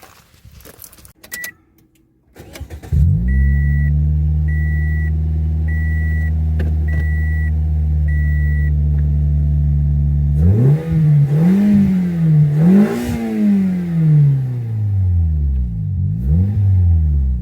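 Toyota 1NZ-FE four-cylinder engine starting about three seconds in and idling steadily while a car's warning chime beeps five times. About ten seconds in the engine is revved three times, then falls back to idle.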